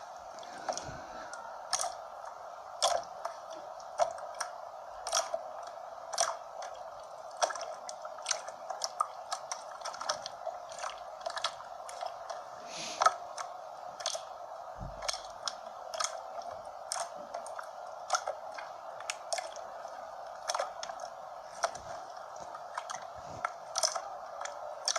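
Slime being squeezed and worked by hand, giving irregular small crackling pops and clicks, a few a second.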